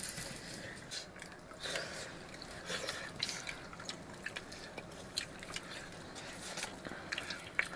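People eating gravy rice: chewing, with irregular small clicks and light wet sounds of the rice and gravy being handled on plates.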